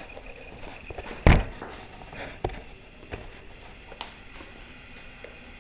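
Handling noise as the camera is set up and positioned: one loud thump about a second in, then a few light clicks and taps.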